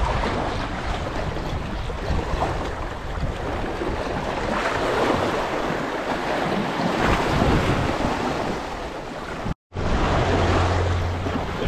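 Sea waves washing against rocks, with wind buffeting the microphone. The sound cuts out for an instant near the end, and a steady low hum comes in after it.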